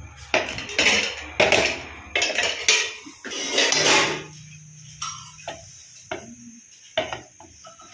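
Metal cookware clattering: a run of irregular knocks, clanks and short scrapes, thickest in the first half and sparser towards the end.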